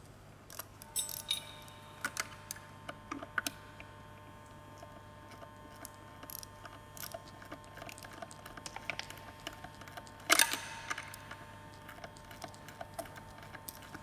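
Hand ratchet clicking and wrenches clinking on metal as the supercharger mounting bolts are worked on a Ford Coyote V8, in scattered short ticks, with one sharp ringing metal clank about ten seconds in.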